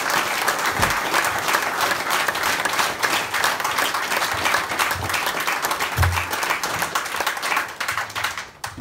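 Audience applauding, a dense, steady clapping that stops shortly before the end.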